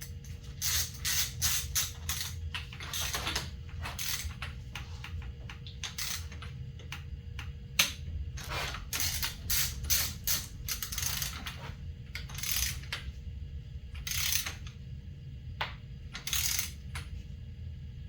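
Ratchet torque wrench worked in short bursts of clicking strokes, tightening the top triple-clamp bolts, with one sharp louder click a little before the middle.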